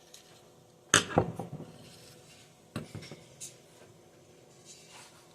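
Metal parts of a GMC .22 LR rifle clicking and clattering as the action is handled during disassembly: a sharp click about a second in with a short rattle after it, then a few lighter clicks.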